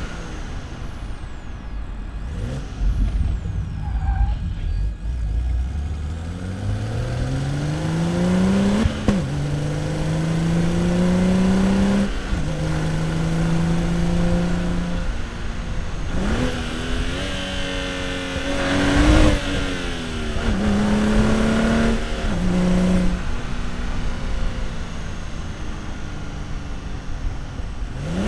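BMW 435i's N55 turbocharged straight-six pulling through the gears of its manual gearbox. The engine note climbs and drops back at each upshift several times, reaches its highest revs about two-thirds of the way through, then falls away as the car eases off. Low wind buffeting on the exhaust microphone is heard early on.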